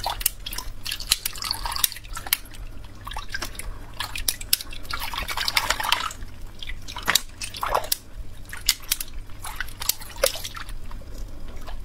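Liquid poured from a plastic pitcher, trickling and dripping onto a stacked pyramid of ice cubes, with many sharp clicks throughout.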